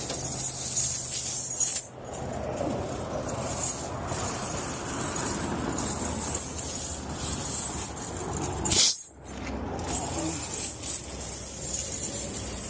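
Steel tire chains clinking and jangling as they are handled and fitted onto a truck's tyres, over a steady low rumble.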